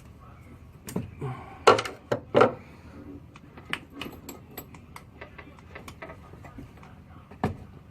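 A socket wrench on a long extension clanking against metal, a few loud knocks, then scattered light clicks while the tool works under a car's dashboard.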